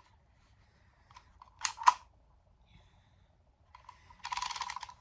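Handheld dial label maker: two sharp clicks a little under two seconds in as a letter is pressed onto the tape, then near the end a rapid run of ratcheting clicks as the letter dial is turned to the next letter.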